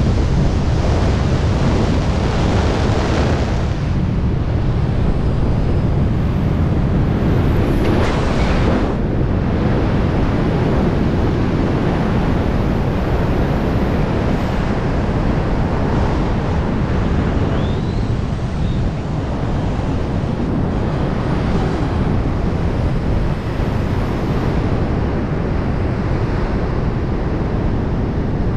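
Loud, steady rush of airspeed wind buffeting a body-mounted camera's microphone in wingsuit flight, surging briefly now and then.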